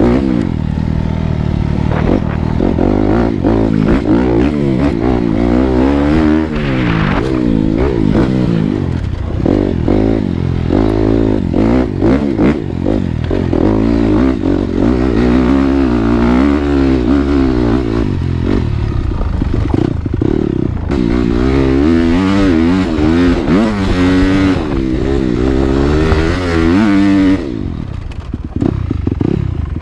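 Dirt bike engine revving up and down continually as the rider works the throttle over rough trail. The pitch rises and falls every second or two, and the engine eases off for a moment near the end.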